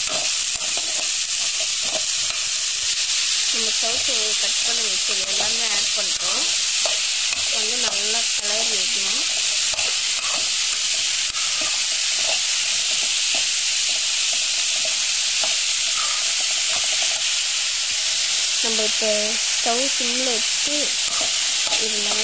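Diced chow chow (chayote) stir-frying in oil in an aluminium kadai: a steady sizzle, with a metal spatula scraping and clicking against the pan as the pieces are stirred.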